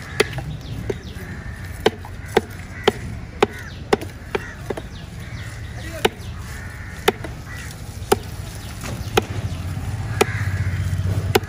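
Cleaver chopping a mahi-mahi fillet into chunks on a wooden log chopping block: a series of sharp knocks, about two a second at first, then roughly one a second.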